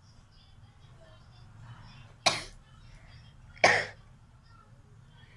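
A person gives two short, sharp sneezes about a second and a half apart.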